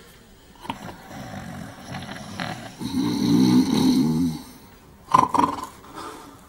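Two men snoring in turn, several separate snores, the longest and loudest a rasping one from about three to four and a half seconds in.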